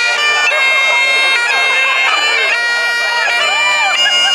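Bagpipes playing a tune over a steady drone.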